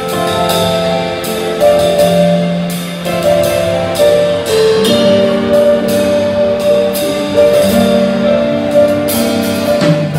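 Live band playing an instrumental introduction: held keyboard chords that change every second or two, over repeated cymbal strikes, with no singing.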